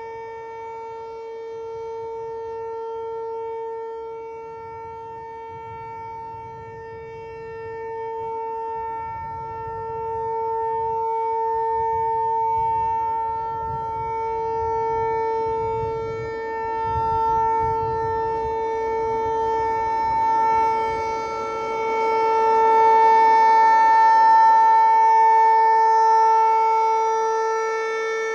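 Outdoor tornado warning siren sounding a steady alert tone during a test, holding one pitch while its loudness slowly swells and fades. It is loudest about three-quarters of the way through.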